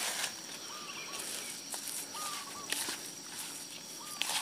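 A bird repeats a short whistled call about every second and a half. Under it, hands knead damp fish-pellet bait in a plastic bowl, with brief handling noises at the start and near the end.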